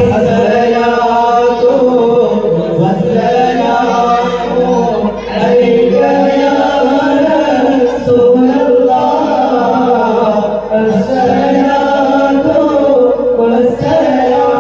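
A group of men singing an Islamic devotional chant together in long held notes.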